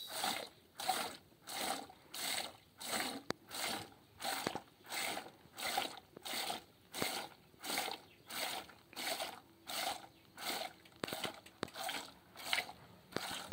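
Milk squirting from a cow's teats into a red plastic bucket during hand milking: a regular rhythm of short hissing spurts, about two a second, with a few faint clicks.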